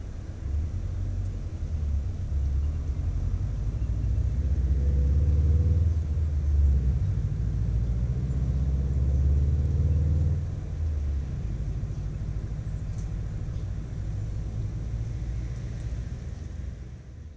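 A low, steady outdoor rumble that swells between about four and ten seconds in, with a faint hum over it during the loud stretch, then eases off.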